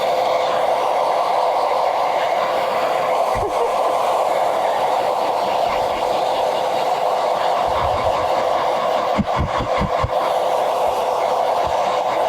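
Handheld hairdryer blowing steadily on a puppy's damp coat, with a few soft low thumps of handling about eight to ten seconds in.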